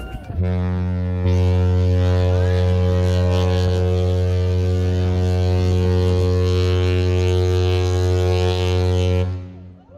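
Horn of the cruise ship Mein Schiff 6 sounding one long, low, steady blast of about nine seconds that stops shortly before the end, the ship's signal on leaving port.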